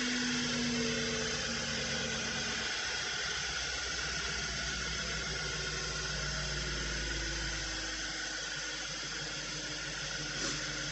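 Audi S5 engine idling steadily on its first cold start after an intake-valve carbon cleaning, with the secondary air injection pump hissing over it; the idle shifts a couple of times as it settles and the misfires clear.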